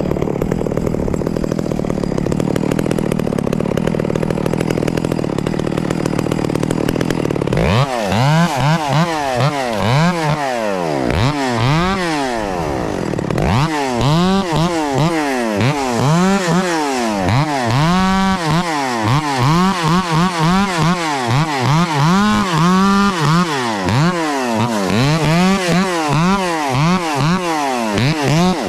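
Echo CS-670 two-stroke chainsaw running at high revs with a steady note for the first seven seconds or so, then revved up and dropping back over and over, about once a second.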